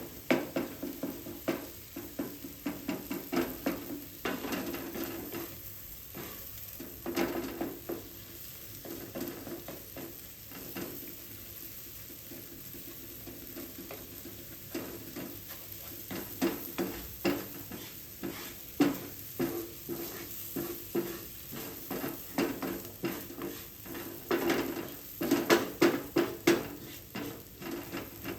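A utensil stirring and scraping in a pan of frying curry: a steady sizzle with repeated knocks of the utensil against the pan, busiest near the end.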